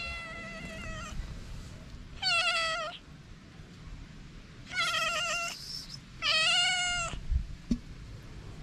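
A cat meowing four times, a second or so apart, each call short and high with a slight rise and fall; the first is fainter than the other three. A short knock near the end.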